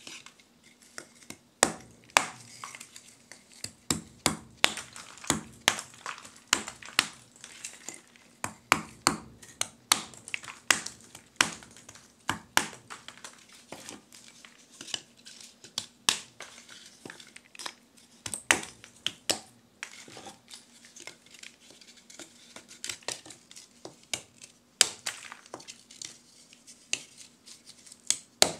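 Lumps of forge charcoal being chopped with a thin-bladed chopper on a wooden block: a run of sharp, irregular chops, roughly one or two a second, with the pieces crunching as they split.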